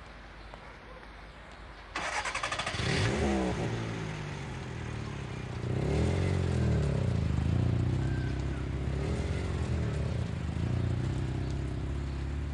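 Car engine cranked by the starter about two seconds in, catching and revving. The engine then runs, its revs rising and falling several times.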